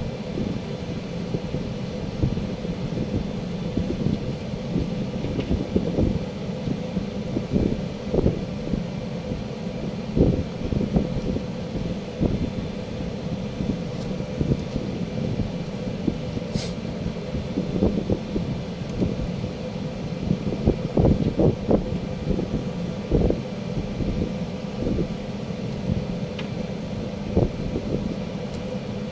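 Gusty wind buffeting the microphone over a steady low rumble, with one faint sharp click about halfway through.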